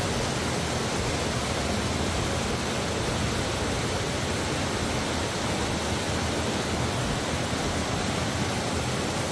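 Underground waterfall rushing and splashing over limestone rock inside a cave, a steady, unbroken roar of falling water.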